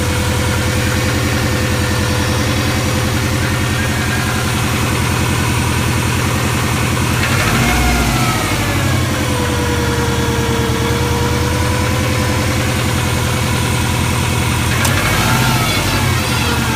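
1997 Subaru Impreza GT's turbocharged flat-four engine idling with a steady rhythmic knock, revved lightly twice, about halfway through and again near the end. The knock comes on cold start and under light throttle; a Subaru mechanic calls it piston slap, while the owner suspects a spun main or big-end bearing.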